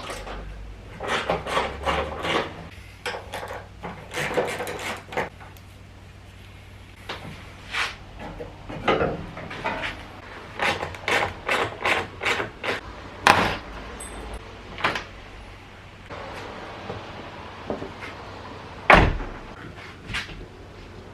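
Hand tools clicking and clanking on the bolts and body panel as a Ford Fiesta's front wing is unbolted and lifted off: irregular knocks and short clatters, with one louder thump near the end.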